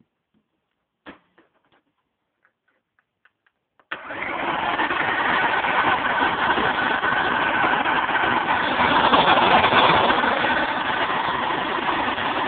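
A few light handling clicks, then about four seconds in a Eureka Sanitaire-style commercial upright vacuum is switched on: its motor comes up to speed almost at once and runs steadily with a whine, driving the spinning brush roll.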